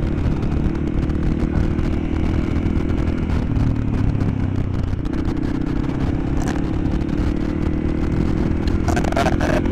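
Motorcycle engine running steadily at road speed, easing off briefly partway through. Near the end a person burps loudly over the engine.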